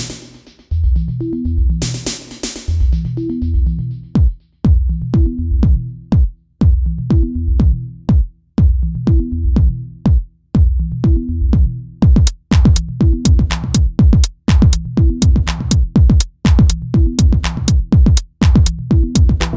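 Electronic music with a drum-machine beat and a repeating bass line; the percussion gets busier about twelve seconds in.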